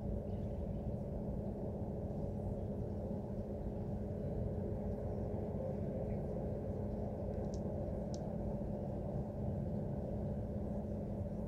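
Casting-plant machinery running: a steady low rumble with a few held hum tones above it, which the uploader takes for failing equipment.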